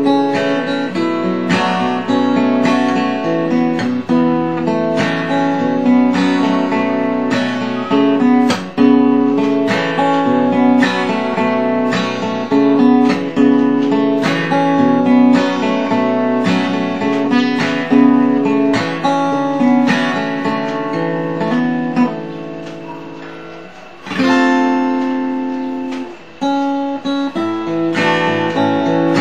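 Background music: acoustic guitar strummed in a steady rhythm. About two thirds of the way through, one chord is left to ring and fade before the strumming starts again.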